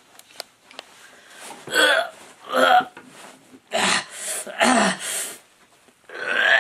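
A man gasping and groaning in about five short, strained vocal bursts, some breathy and some pitched with a sliding, falling tone.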